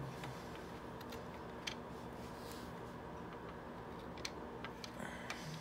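Scattered small clicks and ticks of a tiny screw being handled and turned by hand into the plastic housing of a C5 Corvette climate control unit, over a faint steady hum. The sharpest click comes a little under two seconds in.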